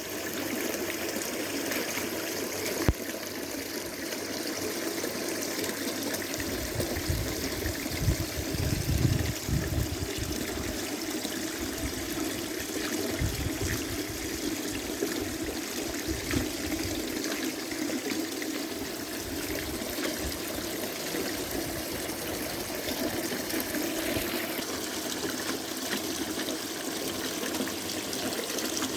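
Water trickling steadily down a small indoor tabletop fountain built from a tree root, a little waterfall splashing into its basin. A single sharp click about three seconds in, and some low rumbling through the middle.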